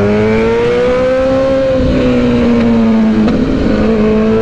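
Suzuki Hayabusa's inline-four engine under the rider, pulling on the throttle with its pitch rising for about the first second and a half. It then eases off a little and holds steady while cruising.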